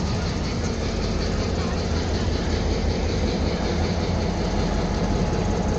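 Diesel locomotive of a freight train idling with a steady low rumble.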